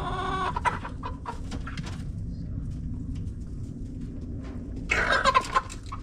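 Young chickens clucking and squawking as they are handled, with a pitched call at the start and a loud burst of squawking about five seconds in.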